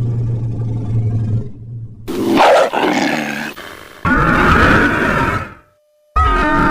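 Kaiju monster sound effects played one after another: a low, steady-pitched growl that fades out about a second and a half in, then a loud, high roar about two seconds in. Two more roars follow, the last starting after a short silence near the end.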